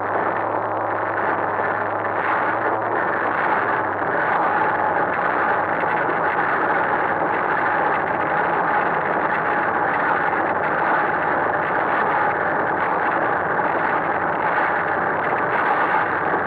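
A boat's railing rattling continuously, a dense steady chatter over the running engine; a low hum fades out about four seconds in.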